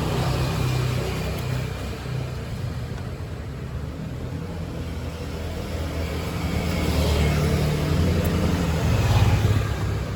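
Motor vehicle engines passing by, a low rumble that swells and fades and is loudest about seven to nine seconds in.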